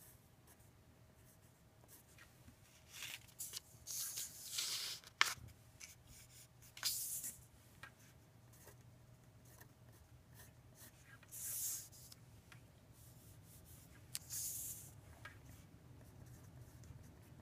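Felt-tip marker writing on paper: short scratchy strokes in several bursts with a few small taps as the tip lands, over a faint steady hum.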